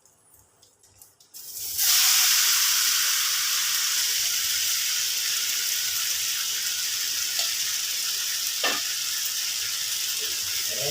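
Mango pieces tipped into hot oil with fried ginger, curry leaves and spices in a non-stick pan, bursting into a loud sizzle about a second and a half in. The frying then carries on steadily, easing a little, with a couple of light knocks.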